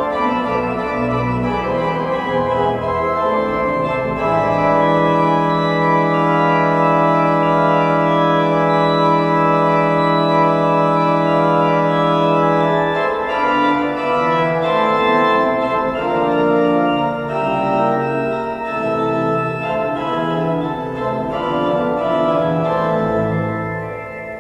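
Organ playing sustained chords. One chord is held for about eight seconds, then the music moves on in shorter, changing notes.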